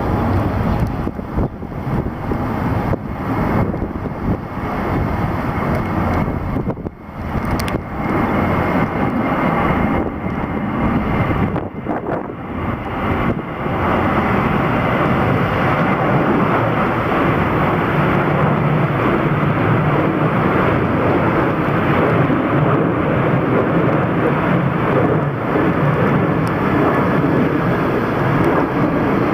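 Strong gusty wind buffeting the microphone, with a jet airliner's engines running under it; about halfway through the gusting gives way to a steady, even roar.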